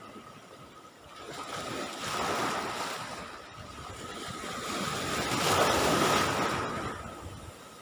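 Sea waves breaking and washing up the shore, swelling up twice in the few seconds; the sea is fairly rough.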